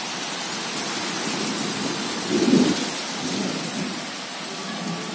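Heavy rain pouring down, a steady hiss of rain falling on the pool water and patio. About halfway through, a brief louder low rumble swells up over it.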